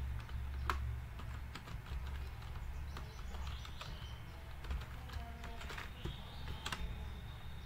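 Typing on a computer keyboard: irregular key clicks over a low, steady hum.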